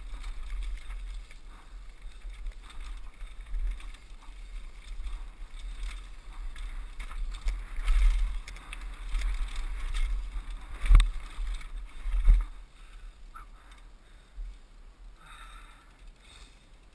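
Mountain bike descending a rough dirt trail, heard from a helmet camera: wind buffeting the microphone over the rattle of the bike, with two sharp knocks about two-thirds of the way through. The noise then drops off as the bike slows to a stop.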